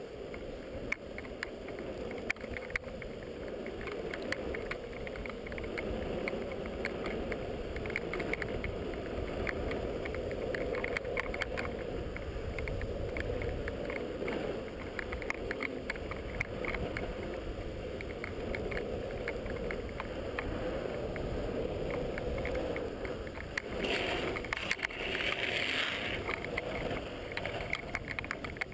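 Longboard wheels rolling fast on asphalt: a steady rolling roar with frequent small ticks from the road surface, and wind on the microphone. About 24 seconds in, a louder hissing stretch lasting a couple of seconds cuts in.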